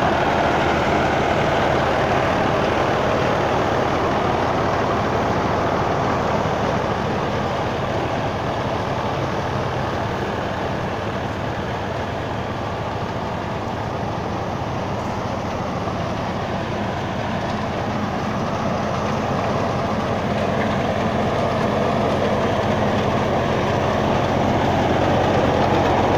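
New Holland Ghazi 65 hp diesel tractor running steadily under load, driving a belt-powered wheat thresher, with the engine and the threshing machine heard together. It grows a little quieter in the middle and louder again near the end.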